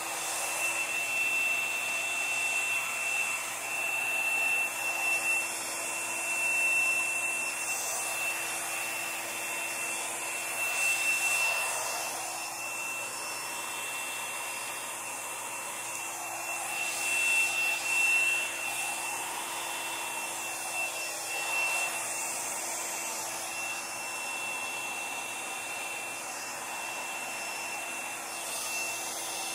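Handheld hair dryer running steadily, blowing wet acrylic paint across a canvas, with a thin high whine over the rush of air. Its level swells and falls several times.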